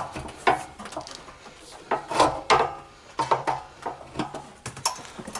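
Bolt cutters clamped on a small engine's steel governor arm shaft, giving a string of short sharp clicks and creaks as the handles are worked to cut the shaft off.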